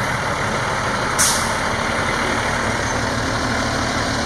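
Fire rescue truck passing close with a steady engine rumble, and one short, sharp hiss of its air brakes about a second in.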